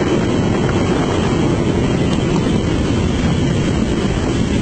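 Steady rush of wind buffeting the microphone on a motorcycle at around 200 km/h, with the bike's engine drone buried under it.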